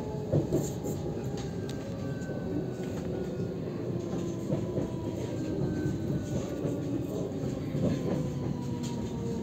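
Inside a moving ES2G Lastochka electric train: a steady running rumble, with the traction motors' whine slowly falling in pitch as the train slows, and the wheels clicking over rail joints and points now and then.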